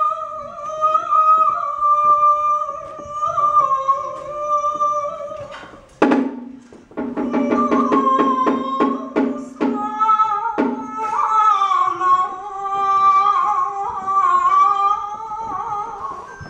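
Live music: a high voice singing long, wavering held notes, broken about six seconds in by a run of quick plucked string notes, after which the held singing returns over the plucking.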